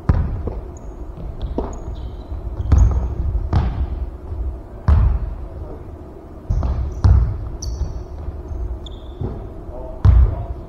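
Basketball bouncing on a hardwood gym floor: irregular heavy thuds that echo in the hall. Short high squeaks of sneakers on the floor come between them.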